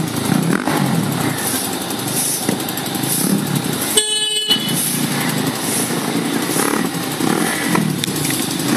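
Motorcycle engine running with steady traffic noise. About four seconds in there is a brief horn toot lasting about half a second.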